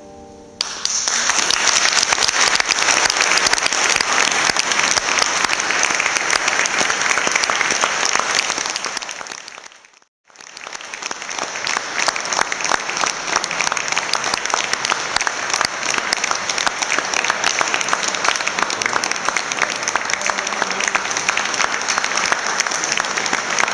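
Audience applauding, breaking out suddenly just after the last violin note and continuing as dense clapping. It drops away to silence for a moment about ten seconds in, then comes back and goes on.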